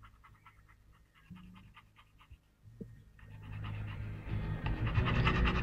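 Labrador retriever panting with quick, even breaths. A low rumble comes up under it from about three seconds in and grows louder.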